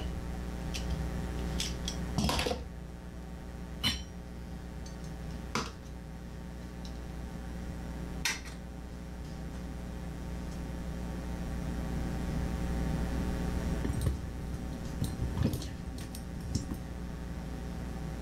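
Glass canning jars, a metal jar lifter and a stainless canning funnel clinking and knocking against each other and the counter, a handful of separate sharp clinks spread through, over a steady low hum.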